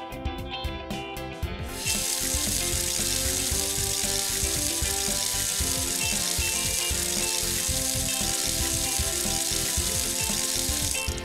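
Water running from a tap into a sink, a steady hiss that starts about two seconds in and stops just before the end, over light background music.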